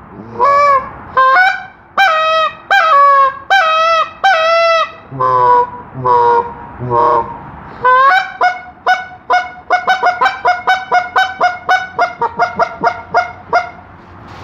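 Winglock walnut goose call blown by hand: a series of two-note honks that break sharply from high to low, a few longer, lower moans, then a fast run of short clucks at about four a second, quickening near the end.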